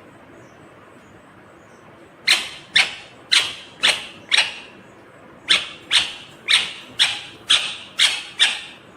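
Ringneck parrot (rose-ringed parakeet) giving short, sharp shrieking calls about two a second. One run of five calls starts about two seconds in, and after a brief pause a longer run of about seven follows.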